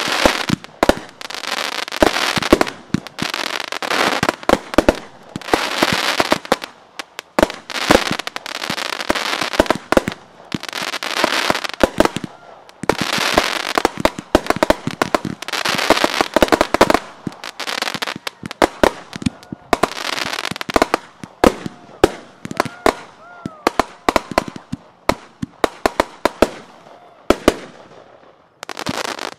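Aerial fireworks in a grand finale barrage: sharp bangs in quick succession, mixed with stretches of hiss and crackle, thinning out near the end.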